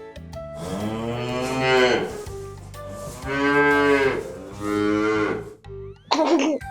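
A cow mooing: long drawn-out moos, one after another, each rising and then falling away, over steady background music.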